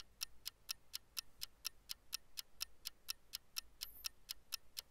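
Clock ticking fast and evenly, about five ticks a second, marking a ten-second countdown.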